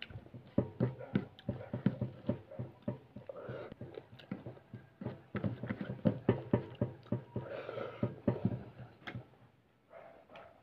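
A person eating chicken, chewing with a run of short, irregular mouth smacks and clicks that stop near the end.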